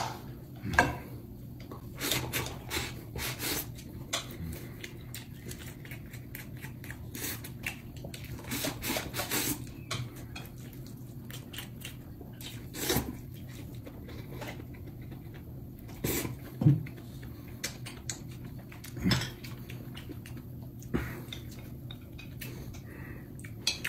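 A person eating with chopsticks: scattered clicks and taps of chopsticks against a plate of rice and dishes, with chewing in between, over a steady low hum.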